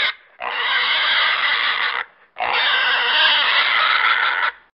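Pig squealing: the end of one squeal, then two long, loud, wavering squeals of nearly two seconds each with short breaks between.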